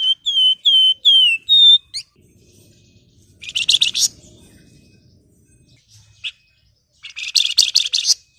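Flamboyan (Javan fulvetta, wergan Jawa) singing: a run of five clear whistles, some sliding down and the last rising, followed by two fast, rattling chatters a few seconds apart.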